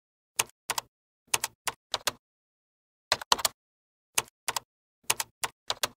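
Keyboard typing sound effect: short key clicks, singly or in pairs, with dead silence between them and a pause of about a second in the middle.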